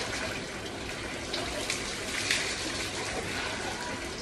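Water scooped from a bucket with a plastic mug and poured over a man's head, splashing down his body onto the floor; the splashing comes and goes, strongest around the middle.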